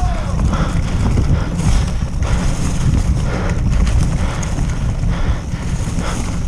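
Mountain bike rolling fast over a leaf-covered dirt forest trail: tyres crunching through the leaves and the bike rattling irregularly over bumps, with a steady wind rumble on the microphone.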